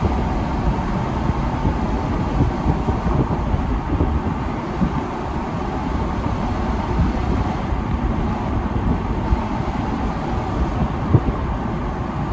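Steady road and wind noise of a car driving along, heard from inside the car, with a low rumble and rushing wind.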